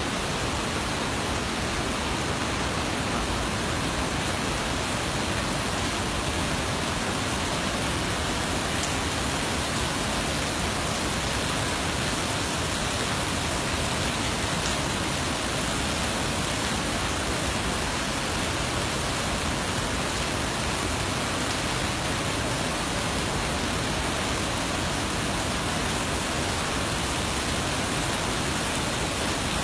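Steady, unbroken hiss of falling water from heavy rain and the waterfalls pouring down the cliffs.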